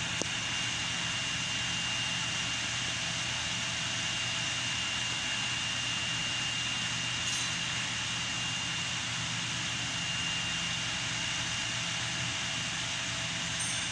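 Land Rover LR4 engine running steadily at idle, a constant engine hum with a thin, steady high-pitched whine over it.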